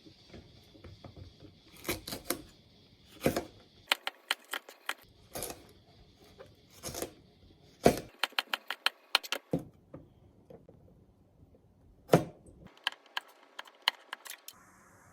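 Irregular clicks, taps and knocks of small hard objects being handled, some in quick runs, with louder knocks about two, three, eight and twelve seconds in.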